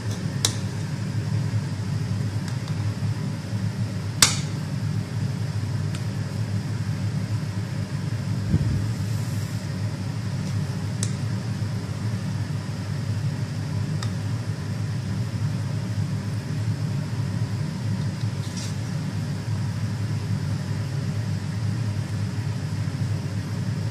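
A fan's steady low hum, with a few sharp clicks over it, the loudest about four seconds in.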